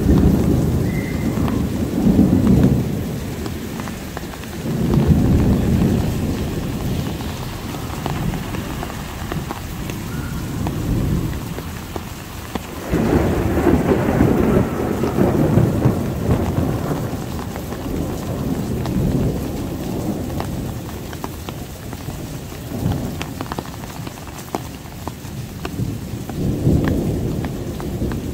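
Heavy rain pouring steadily while thunder rumbles roll in again and again. The loudest rumbles come right at the start and about thirteen seconds in.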